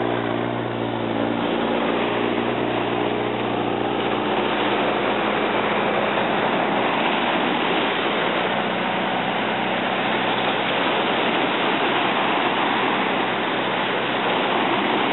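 Surf breaking and washing up a sandy beach, a steady rush of waves. Under it a low engine hum fades away over the first few seconds.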